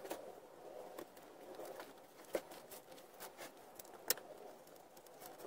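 Light clicks and knocks of softwood frame pieces being handled and pushed together on a workbench, with two sharper knocks, one about two and a half seconds in and one about four seconds in.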